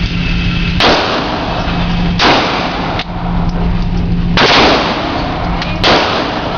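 Four gunshots from a firearm at a shooting range, spaced roughly one and a half to two seconds apart, each followed by a short echoing tail, over a steady low hum.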